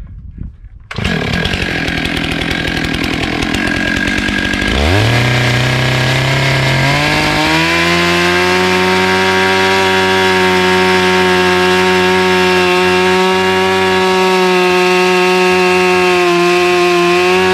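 Stihl chainsaw cutting through the end of a fir log. The saw comes in abruptly about a second in, revs up around five seconds in, then holds a steady high pitch at full throttle as the chain works through the log.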